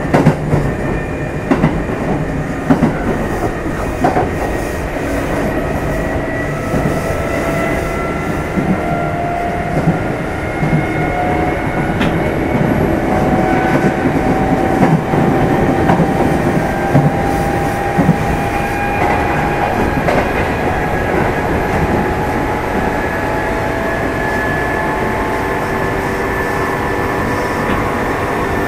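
Onboard running sound of a Kintetsu 2610-series electric train, recorded inside motor car Mo 2668. The motor and gear whine rises slowly in pitch as the train gains speed, over steady running noise with occasional wheel clacks.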